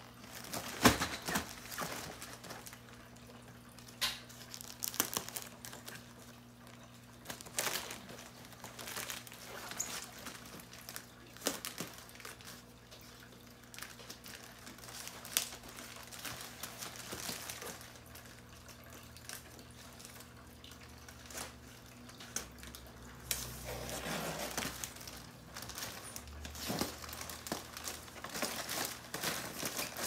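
Plastic courier mailer bag crinkling and rustling as it is handled and opened, in irregular sharp crackles with a longer stretch of rustling near the end.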